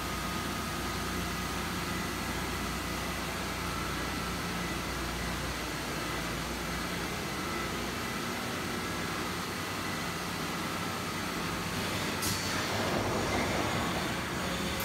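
Mazak FH-4800 horizontal machining center running: a steady mechanical hum with a faint high whine, joined about twelve seconds in by a rising hiss.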